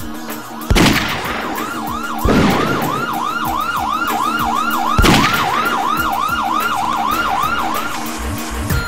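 Siren sound effect laid into a song: a yelping tone that rises and falls about four times a second, with three heavy booms about a second, two and a half seconds and five seconds in, then stopping about a second before the end.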